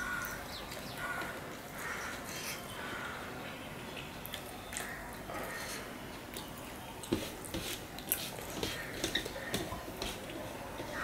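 Close-miked eating sounds of a man eating rice and curry by hand: wet chewing and lip smacking. In the second half come many sharp clicks and light taps as his fingers mix rice on a steel plate.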